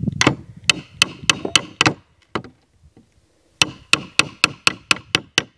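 Steel claw hammer tapping the top of an Estwing Nail Jack nail-pulling plier, metal on metal, driving its jaws into the wood under the head of a small finishing nail. Two quick runs of light taps, about four a second, with a pause of over a second between them.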